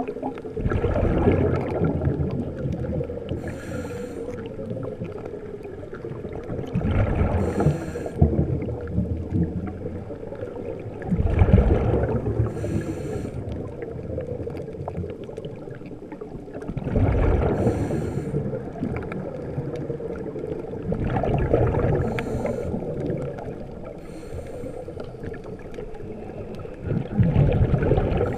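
Scuba diver breathing through a regulator underwater: a hissing inhale through the demand valve and a rumble of exhaled bubbles, one breath about every five seconds, over a faint steady hum.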